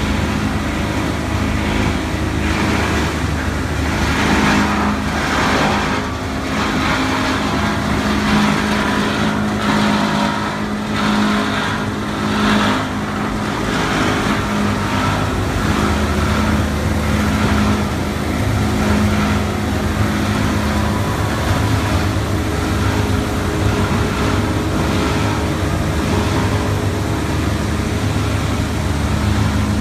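Waste plastic film washing machine running: a steady electric-motor hum under a continuous mechanical wash of noise, with irregular rattling surges in the first half.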